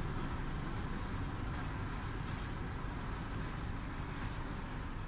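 Diesel locomotive hauling ballast hopper wagons, heard as a steady low rumble as the slow work train moves away.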